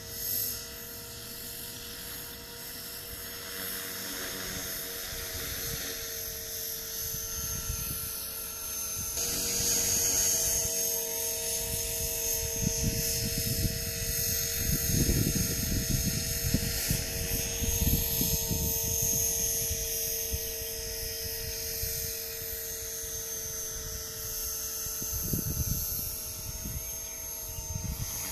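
Blade 450 3D electric RC helicopter in flight: the steady high whine of its electric motor and spinning rotor, holding one pitch and getting louder about ten seconds in.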